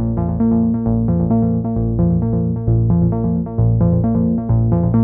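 Background music: quick repeated keyboard-like notes over a bass line that steps every half second or so, at a steady level.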